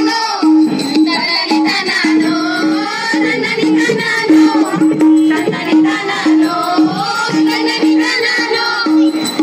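Folk dance music: a singer over percussion and a rattling shaker, with a short held note repeating underneath.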